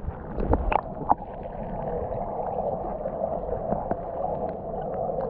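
Muffled rushing of a waterfall heard underwater, steady, with scattered small clicks and bubble pops; a few louder pops come in the first second and a half.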